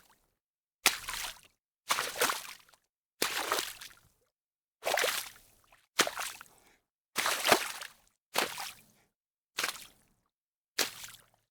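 Footsteps splashing through shallow water, nine steps about a second or so apart, each a sharp splash that fades quickly, with complete silence between steps.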